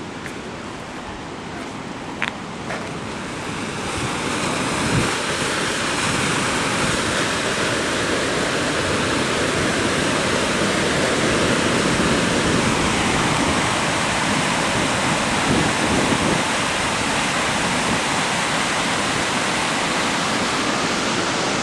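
Arkansas River water rushing past, a steady even noise that grows louder about four seconds in, with one short knock just after two seconds.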